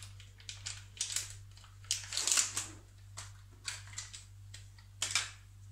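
Plastic quark tub being opened, its lid peeled back and crinkled, in short bouts of crackling rustle. The loudest comes about two seconds in.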